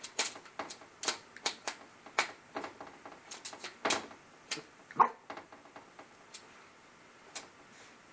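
A puppy's claws tapping and scratching at a mirror and its frame in quick, irregular clicks, with one louder, sharper sound about five seconds in; the tapping thins out over the last few seconds.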